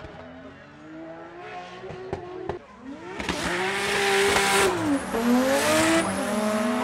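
Mazda RX7 FC drift car sliding with squealing tyres, its engine revving up and down on the throttle. The sound is faint at first and grows much louder about three seconds in as the car slides close by.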